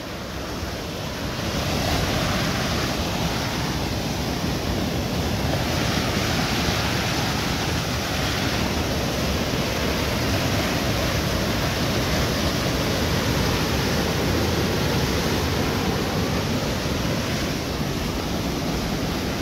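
Flooded, rain-swollen mountain stream rushing over boulders: a loud, steady roar of muddy floodwater, which grows a little louder about a second and a half in.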